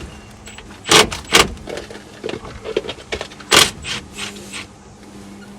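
Hand tools working on a car's underside, likely a brake line fitting being opened: sharp metal knocks about a second in, again shortly after and about three and a half seconds in, with smaller clicks and scrapes between.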